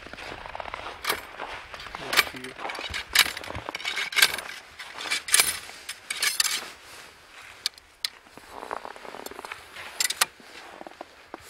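Hunting gear being handled at an open pickup truck door: rustling, with a string of sharp clicks and clinks roughly once a second, then two more knocks near the end.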